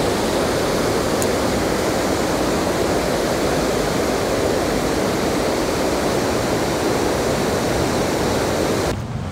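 Creek water rushing over a low weir: a steady rush of whitewater. It cuts off suddenly near the end.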